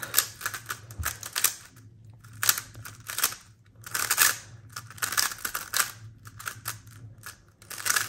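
Plastic layers of a Super RS3M V2 3x3 speedcube clicking and clacking as they are turned quickly by hand, in irregular flurries with brief pauses.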